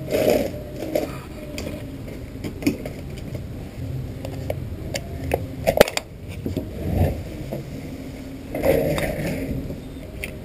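Plastic housing and parts of a Loona robot being handled and taken apart: scattered clicks, knocks and scrapes, with one sharp click about halfway through.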